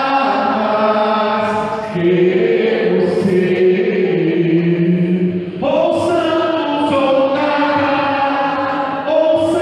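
Voices singing a slow chant in long held notes, with the notes changing about two seconds in and again near six seconds.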